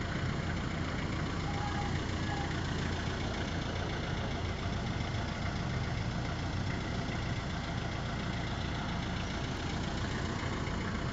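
Steady engine hum and road noise of a vehicle moving slowly, heard from the vehicle the recording is made from.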